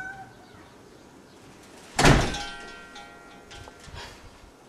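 A wooden front door swung shut with a loud thud about two seconds in, followed by a few lighter knocks.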